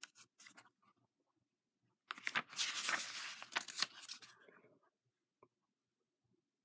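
A page of a small hardcover picture book being turned by hand, with paper rustling and crackling for about two and a half seconds, starting about two seconds in.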